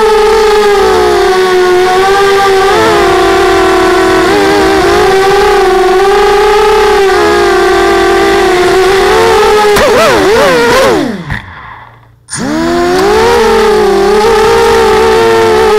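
Electric motors of a small FPV model aircraft whining, heard from the onboard camera, the pitch wavering up and down with the throttle. About ten seconds in the whine dives sharply in pitch and cuts out for about a second, then rises again as the motors spool back up.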